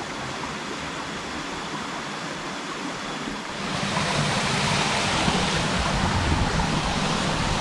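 Steady rush of flowing river water, louder from about three and a half seconds in.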